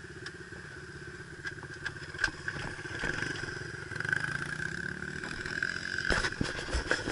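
Dirt bike engine idling steadily. From about six seconds in, loud knocks and scrapes of a hand rubbing on the camera.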